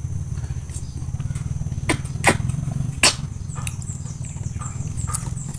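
Mouth sounds of eating wild passion fruit pulp: a few sharp sucking and smacking clicks, the loudest about two and three seconds in, then fainter ones, over a steady low hum.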